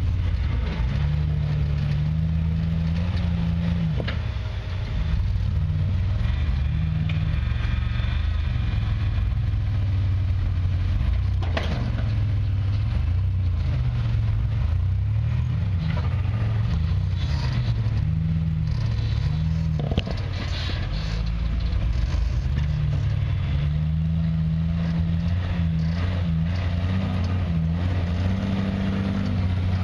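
Off-road vehicle engine running and revving up and down as it drives, with a few sharp knocks and rattles over it.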